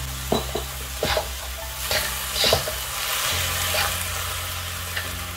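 Minced pork sizzling in a wok, stirred and scraped around the pan with a metal slotted turner in strokes about a second apart. A steady low hum runs underneath.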